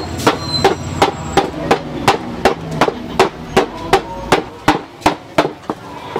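Wooden mallets pounding a crumbly golden food mass flat on a wooden tabletop: a steady beat of knocks, about three a second, stopping shortly before the end.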